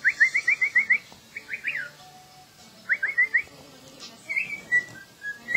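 Cockatiel whistling: a fast run of short rising chirps, a few more in short groups, then a wavering whistled phrase near the end.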